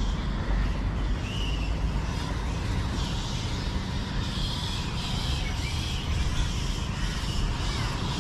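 Steady low rumble of outdoor city street ambience, with a few faint bird chirps.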